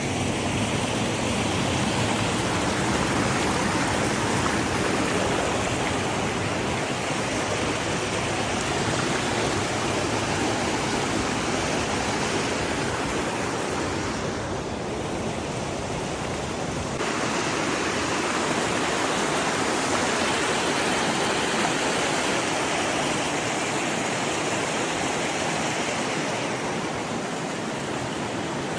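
Waterfall: a steady rush of falling water. Its higher hiss dips for about two seconds around the middle, then returns.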